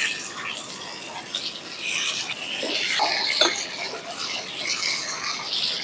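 A spatula stirring potato and cauliflower in a kadhai over a wood fire: scraping and light sizzling, with two sharp clicks about three seconds in.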